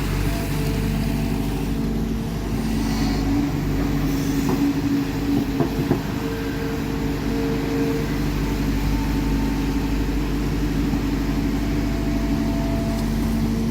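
Heavy diesel machinery running steadily with a low, even engine hum and a few light knocks around the middle.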